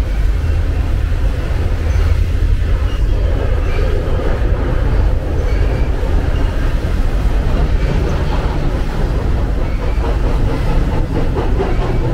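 Freight train of container cars rolling across a steel railway bridge overhead: a steady, loud rumble that goes on without a break.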